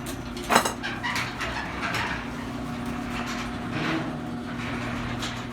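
Electric welding in progress: a steady crackling hiss from the arc over a constant electrical hum, with a sharp click about half a second in.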